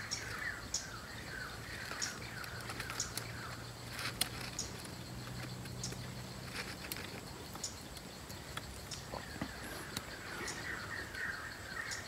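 Red-breasted parakeets giving runs of short, quick, falling chirps, at the start and again near the end. Scattered sharp clicks in between, and a low steady hum for a few seconds in the middle.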